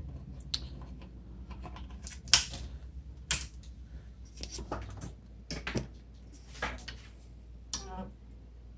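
Irregular faint clicks and taps, about a dozen scattered through, over a low steady hum, from handling the instrument cluster board and bench gear while it is powered up.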